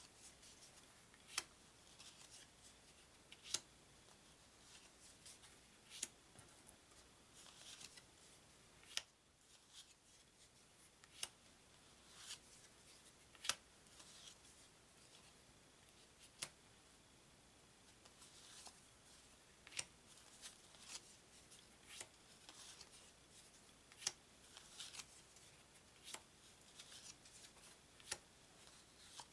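Card-stock playing cards being taken off a deck one at a time, a faint snap every second or two with a light papery slide.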